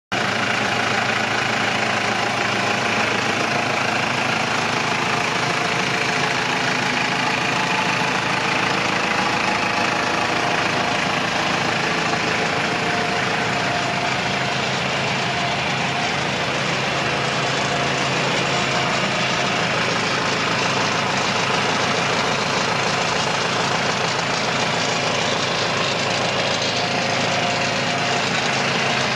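New Holland Boomer 40 compact tractor's diesel engine idling steadily.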